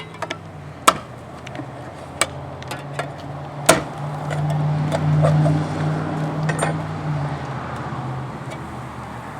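Sharp knocks and clinks from handling a wooden package of honey bees and its syrup can, the loudest about a second in and near the middle. A low hum swells and fades in the second half.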